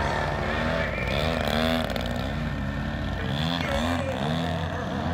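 A large gas model aerobatic plane's DA-120 twin-cylinder two-stroke engine and propeller, revving up and down again and again, about twice a second, as the throttle is worked while the plane hangs low and nose-high.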